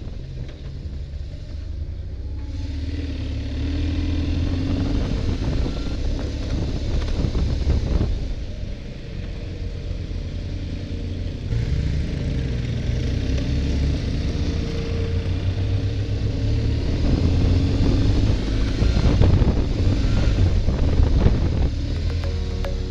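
Motorcycle engine running under way at low speed, picking up in the first few seconds, easing off about eight seconds in, then pulling again, with wind noise on the microphone.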